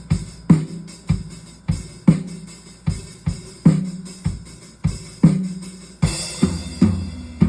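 Raw recording of a live acoustic drum kit played back: a steady kick-and-snare beat with hits about every half second, the kick and snare on new, freshly tuned heads. A cymbal crash comes about six seconds in, followed by several tom hits.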